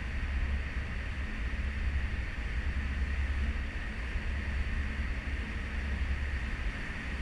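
Wind buffeting a microphone on a cruise ship's stern balcony, over the steady rushing hiss of the ship's wake.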